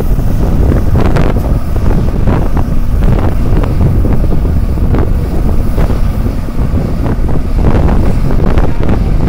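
Heavy wind buffeting the microphone, gusting unevenly, over the diesel engine of a Tata Hitachi long-reach excavator running as it lowers its boom into the water.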